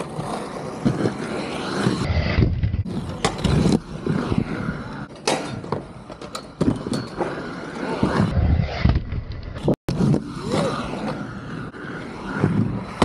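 Skateboards rolling over skatepark ramps and concrete, wheels rumbling, with sharp clacks and knocks of boards landing and hitting the ramps. The sound cuts out for an instant near ten seconds in.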